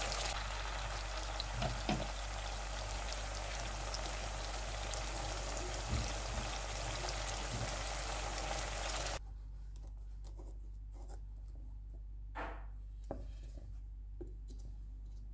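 Chicken liver and gizzard bhuna sizzling in oil in a pan, a steady hiss with a couple of knocks from the stirring spatula. About nine seconds in it cuts off suddenly to quiet, with a few light taps.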